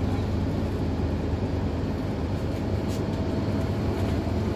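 Interior running noise of a Scania OmniCity single-deck bus on the move: a steady diesel engine drone with road noise, heard from a passenger seat, and one faint click about three seconds in.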